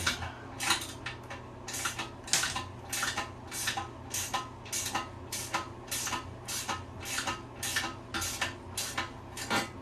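A wrench running a nut down a toilet tank-to-bowl bolt: quick metallic clicks in an even rhythm, about two strokes a second, as the tank bolt is tightened against the new gasket.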